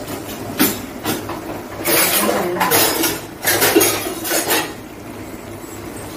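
Metal spoon clinking and scraping against steel utensils: two short clinks, then louder clattering twice. Underneath, a low steady sizzle of tomato, onion and garlic frying in oil in a steel kadai.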